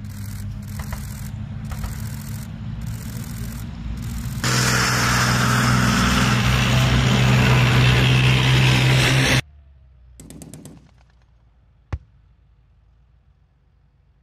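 German Leopard 2 tanks on the move: the diesel engine and tracks rumble steadily, get much louder and fuller about four seconds in as a tank passes close by, then cut off suddenly. After a quiet stretch, a single sharp distant bang sounds near the end.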